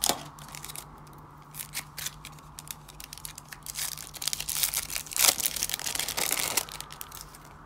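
Foil trading-card pack wrapper crinkling and tearing as it is pulled open by hand, with a sharp click right at the start. The crinkling is loudest about five to six and a half seconds in, as the wrapper is peeled back from the cards.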